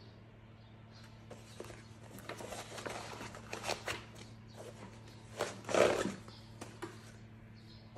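Nylon fabric rustling and scraping as a spiral notebook is slid into the front pocket of a ballistic-nylon organizer tote, in a run of rustles with the loudest about six seconds in, over a low steady hum.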